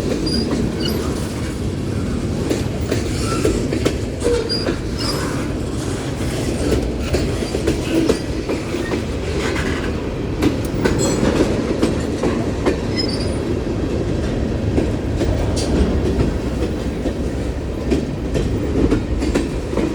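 Freight cars of a Union Pacific mixed freight train, mostly tank cars, rolling past close by: a steady rumble of steel wheels on rail, with clicks and knocks as the wheels cross rail joints and now and then a brief high wheel squeal.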